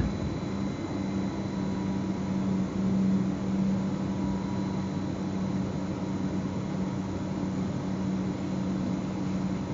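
Cab noise of a Zürich S-Bahn electric commuter train: a steady rushing noise with a low hum, swelling a little about three seconds in.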